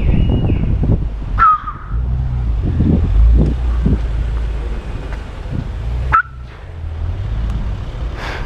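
Wind buffeting the microphone of a bicycle moving through traffic, a heavy steady rumble, with two short high squeals, one about a second and a half in and another about six seconds in.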